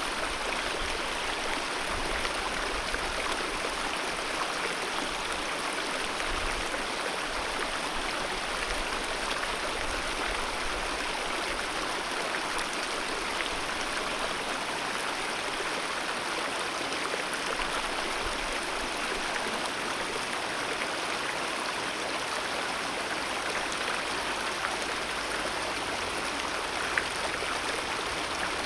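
Alpine mountain river flowing, a steady, even rush of water.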